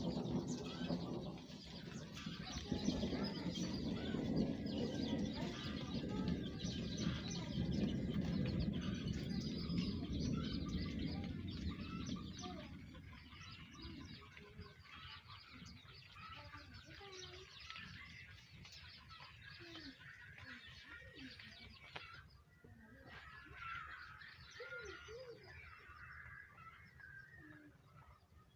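Birds chirping and calling, possibly with domestic fowl clucking, over a rushing noise. The rushing noise is louder for the first twelve seconds or so, then drops away and leaves scattered chirps.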